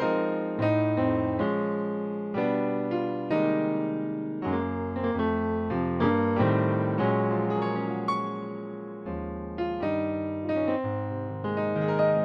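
Electric piano voice from the Pocket Gospel Sound Pack app, played as gospel-style chords with low bass notes underneath, a new chord struck every half second to second.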